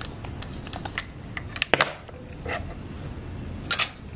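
Nikon FE's rewind crank being turned to wind the exposed film back into its cassette at the end of the roll: a quick string of small clicks, with a few louder clacks from the camera body being handled.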